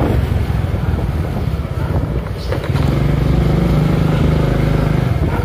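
Honda Biz scooter's single-cylinder four-stroke engine running while riding along a street. The engine note grows steadier and a little louder about halfway through.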